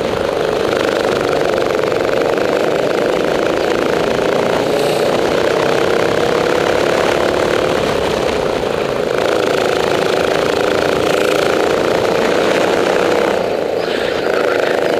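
Rental go-kart's engine running loud and continuous right behind the driver. The engine note drifts slightly in pitch and dips briefly twice, about nine and thirteen seconds in.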